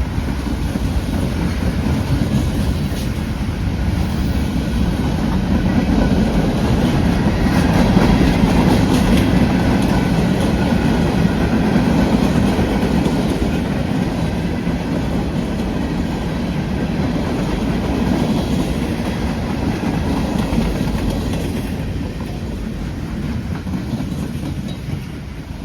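Freight train rolling past, its wheels clattering steadily over the rail joints. It builds to its loudest about a third of the way in, then slowly eases off.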